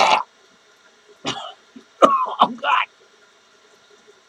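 A man coughing hard and clearing his throat in three harsh bouts, the last and loudest a longer rasping hack about two seconds in, as he brings up phlegm.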